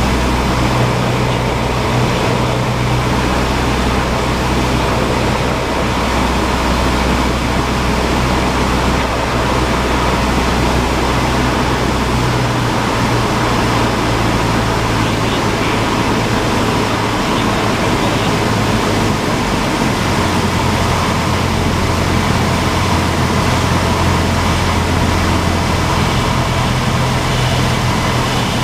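Cessna 172's piston engine and propeller running steadily, heard inside the cockpit as a constant loud drone. The engine note shifts in pitch about halfway through and again about two-thirds of the way through.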